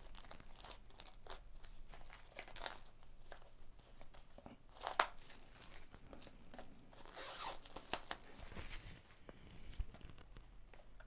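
Thin plastic wrapping being torn and crinkled while a Blu-ray mediabook is unwrapped, with scattered crackles and a sharper click about halfway through.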